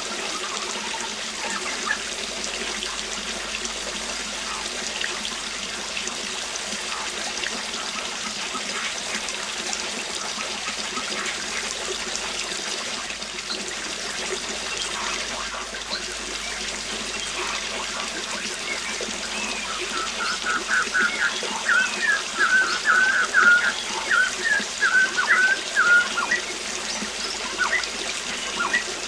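Waterfall running with a steady rush of falling water. About two-thirds of the way in, a bird sings a quick run of short chirps for several seconds.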